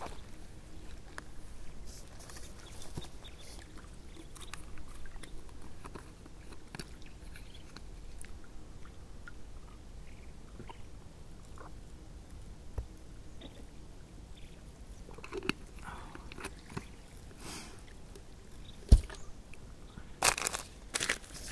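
Scattered light rustles and small clicks of a person shifting on a foam sleeping mat and handling a drinking cup and gear. One sharp knock comes near the end, followed by a short run of louder rustling.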